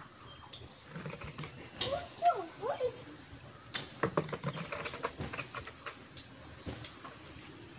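Open fire of firewood and dried coconut and areca palm leaves crackling with irregular sharp pops, the loudest about two and four seconds in. A few short pitched calls sound in the background about two seconds in.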